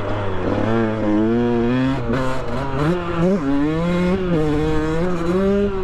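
Two-stroke dirt bike engine revving hard under acceleration, its pitch climbing and then dropping back several times as the rider works up through the gears.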